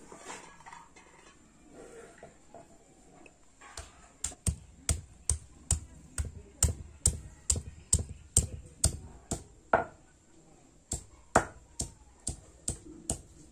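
A hand-held stone pounding on a flat stone grinding slab, crushing garlic. The knocks come steadily, about two or three a second, starting about four seconds in, with a brief pause near ten seconds.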